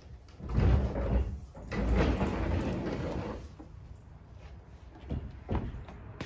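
A sliding front door being rolled open along its track in two long pushes, each a rumbling scrape, followed a few seconds later by a couple of light knocks.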